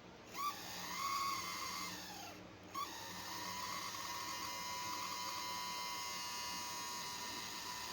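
Small electric motor whining at a steady high pitch. It spins up briefly and winds down, then starts again about three seconds in and runs steadily.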